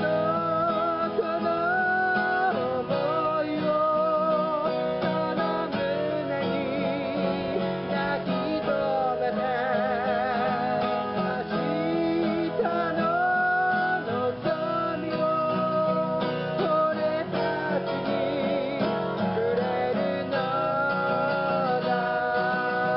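Live acoustic guitars strummed together while a woman sings a slow melody, her held notes wavering with vibrato.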